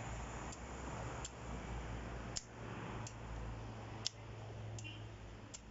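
Bolo knife chopping into a moringa trunk: about seven sharp strikes at an irregular pace, two or three of them louder than the rest.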